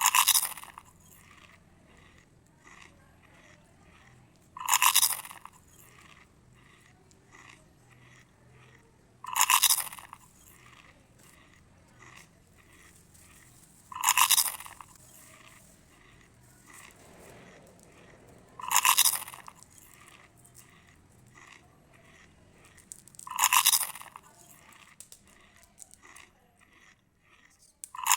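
Close-up eating: a loud crunchy bite about every five seconds, seven in all, with faint chewing sounds between them.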